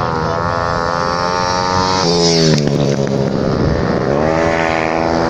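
Several racing motorcycles running hard around a dirt oval track, their engines overlapping. The engine pitch drops sharply about two seconds in, as riders roll off, then climbs again a couple of seconds later as they accelerate.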